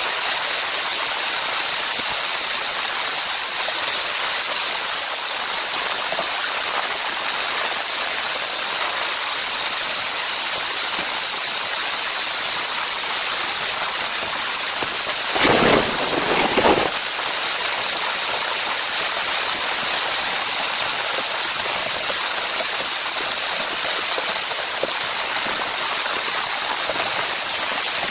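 Steady rain falling, an even hiss. Just past halfway comes a brief louder burst, about a second and a half long, with a low rumble in it.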